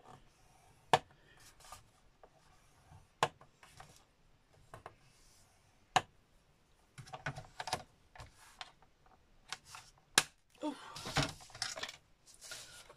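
A bone folder drawn along the grooves of a plastic scoring board to score lines across grey card: a few sharp clicks and short scraping strokes. Near the end comes a longer stretch of scraping and rustling as the bone folder is pushed back into its tight holder slot on the board.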